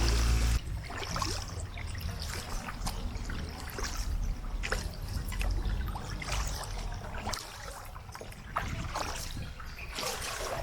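River water trickling and splashing lightly at a kayak, in many small irregular drips and laps. Music cuts off about half a second in.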